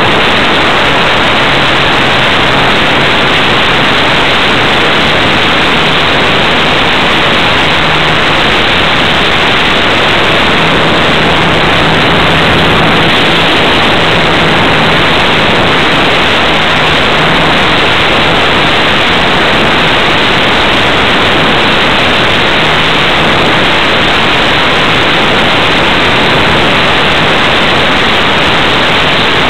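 Loud, steady rushing hiss on the onboard microphone of a flying radio-controlled model airplane, wind and propeller noise, with a faint low hum from its motor that wavers slightly in pitch.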